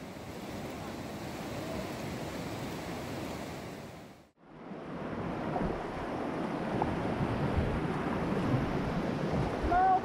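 River rapids rushing, with wind on the microphone. About four seconds in the sound cuts out briefly and comes back louder and closer, as churning whitewater right around the boat.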